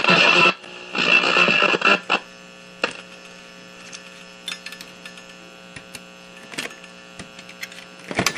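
Viscount tube AM/FM radio's speaker giving a steady mains hum after the station audio cuts out about half a second in and briefly returns. Scattered clicks and a louder crackle near the end come through it as the chassis is handled.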